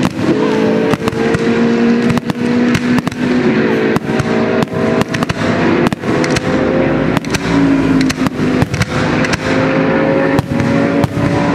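Fireworks shells bursting in a rapid, irregular string of loud bangs. Under them, GT race car engines run continuously, one engine note rising slowly.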